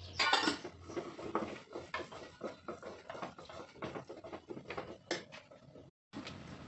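A spoon stirring, scraping and knocking inside a pressure cooker, about two clinks a second, with a louder scrape at the start.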